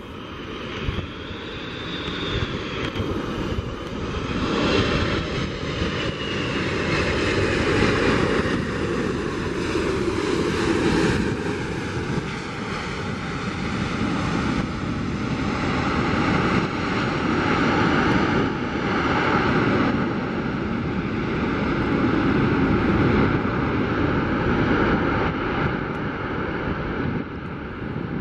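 Boeing 747-400's four jet engines running loud on the landing roll just after touchdown. A high whine slides down in pitch over the first few seconds while the rush of the engines swells and then holds.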